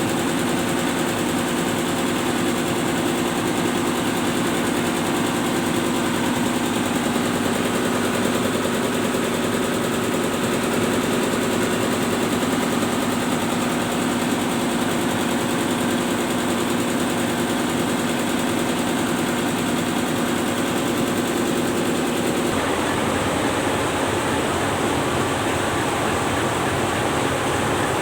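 Tugboat's twin diesel main engines running steadily, with a constant hum. About 22 seconds in, the engine tone changes and a broader rushing noise takes over.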